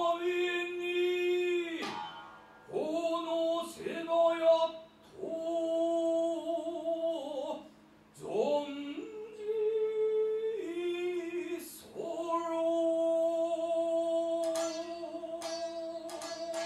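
Biwa-gatari singing: a voice holding long notes for several seconds at a time and sliding up into each new pitch, with a few sharp strikes of the biwa's plectrum, several of them near the end.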